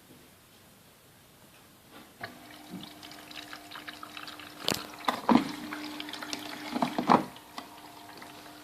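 Siemens washing machine starting its main wash: after about two seconds of quiet, water starts filling in through the inlet valve with a steady hum. Several sharp knocks and clicks come over it, the loudest about five and seven seconds in.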